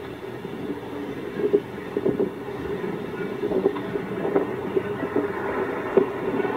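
Wildfire burning through pine trees: a steady rushing noise with several sharp cracks, played back through a television's speaker.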